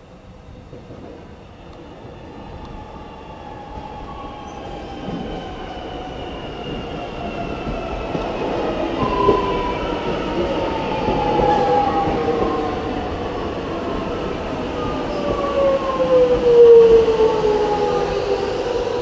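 Melbourne Metro electric suburban train running through the station: several whining tones fall slowly in pitch over a rumble, and the sound grows steadily louder, loudest near the end.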